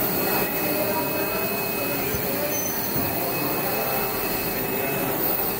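Steady hiss of steam blowing from a hat-maker's steaming cone while a felt hat is held over it, softening the felt so it can be shaped.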